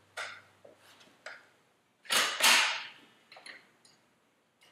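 Light metal clicks and knocks from the Rabaconda tire changer's wider duck head being set on the spoked wheel's rim. There is a louder double clank and scrape about two seconds in, then a few faint ticks.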